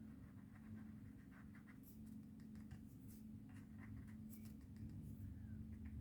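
Faint, light scratching and tapping on card as colour is worked into a stamped image, over a low steady hum.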